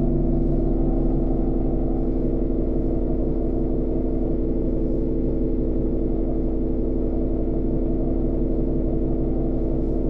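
Diesel engine of an Alexander Dennis Enviro 400 Trident double-decker bus running steadily, heard from the upper deck: an even drone with several held tones over a low rumble.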